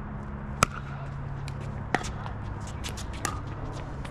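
Pickleball rally: sharp pops of paddles striking the hard plastic ball, the first and loudest about half a second in, then further hits about every second and a half, over a steady low rumble.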